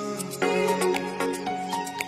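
Music: held chords with a light, regular percussive tick over them, the chord changing about half a second in.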